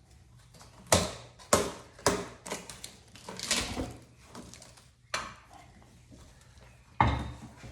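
Irregular metallic clanks and knocks, about half a dozen, as a golf cart wheel is handled and fitted onto its hub studs, with a heavier knock near the end.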